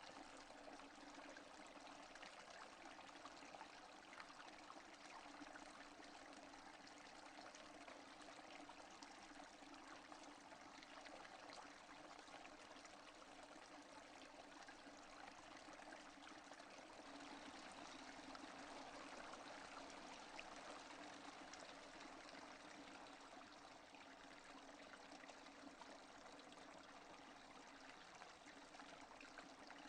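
Faint, steady rain: an even hiss of many small drops pattering, with no thunder.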